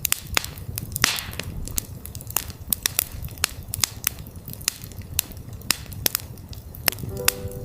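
Wood campfire crackling: irregular sharp pops and snaps over a low rumble of burning. Near the end a steady soft tone, the 369 Hz drone, begins underneath.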